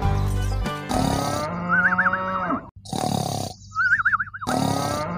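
Cartoon snoring sound effect: a growling snore with a warbling whistle on top, then the whistle alone, then the snore again near the end.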